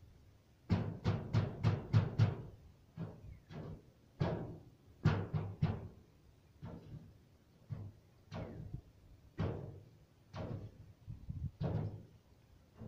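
A series of hollow, resonant knocks or thuds: six quick ones in about a second and a half, then irregular single or paired knocks every half second to a second.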